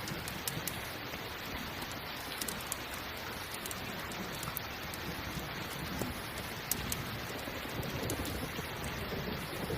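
Steady rain, with scattered sharp crackles from a campfire.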